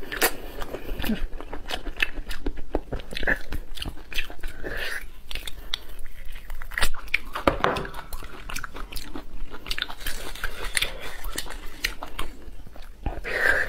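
Biting and chewing beef bone marrow: a quick run of short, sharp crunches and mouth sounds.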